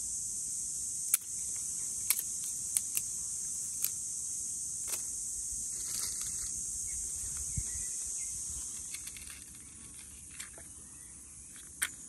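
A steady high buzz of insects, with sharp clicks of dry twigs knocking together as they are stacked onto a fire lay, about nine clicks spread through. The insect buzz drops quieter about nine seconds in.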